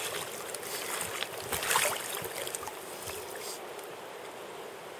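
Shallow river water running steadily, with a burst of splashing about a second and a half in as a steelhead is lowered back into the water, then an even, softer rush of water.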